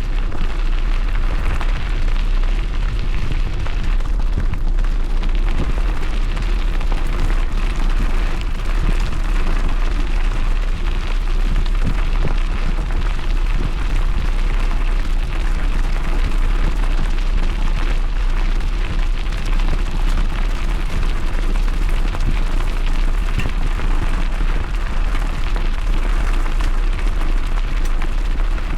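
Wind buffeting the microphone and bike tyres rolling over the trail while two dogs pull the bike at speed, making a steady, loud rumbling rush.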